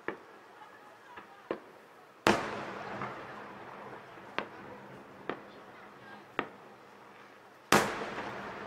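Aerial fireworks shells bursting: two loud bangs about five seconds apart, each trailing off slowly, with several smaller sharp pops between them.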